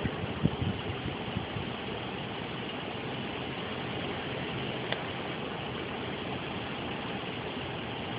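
Steady engine and road noise of a car, heard from inside the moving car, with a few light knocks in the first second and a faint click about five seconds in.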